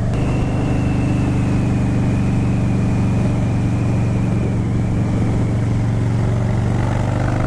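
Harley-Davidson Dyna's V-twin engine running at a steady throttle while cruising, heard from on the bike with wind rush on the microphone. A faint high whine slowly falls in pitch over the engine note.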